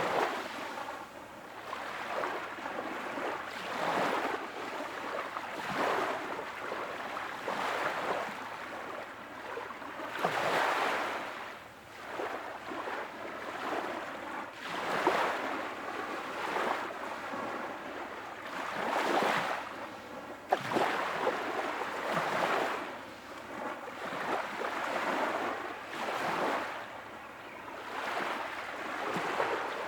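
Ocean waves washing in, one soft surge every two to four seconds over a steady bed of water noise.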